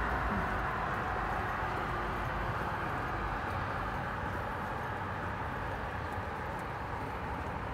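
Steady city ambience of traffic hum with the footsteps of someone walking.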